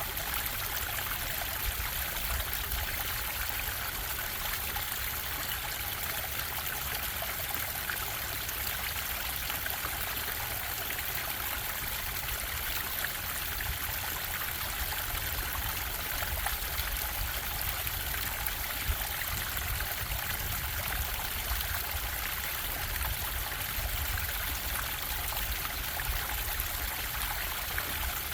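Stream water bubbling and trickling, a steady, unchanging rush.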